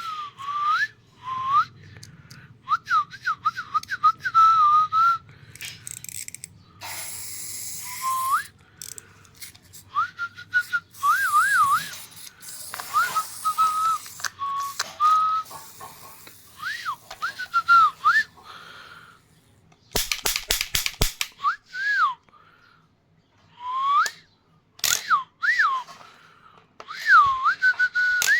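Whistling in short notes that slide up and down, repeated on and off, with clattering and a quick run of sharp clicks about two-thirds of the way through.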